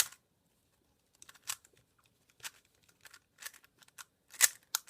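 GAN 356 Advanced plastic speedcube being turned: short sharp clacks as its layers snap round, about seven separate turns at irregular gaps, the loudest near the end.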